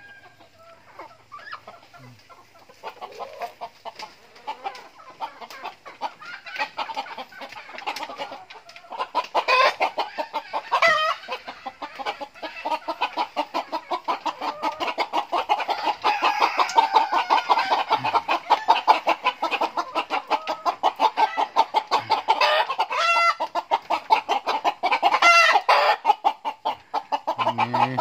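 Chickens clucking in a coop: faint at first, then louder and denser from about a third of the way in, with a few louder single calls standing out.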